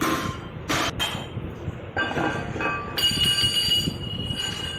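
Two sharp metal knocks on a bent steel wheel rim as it is straightened, then a high, steady metallic squeal from about two seconds in.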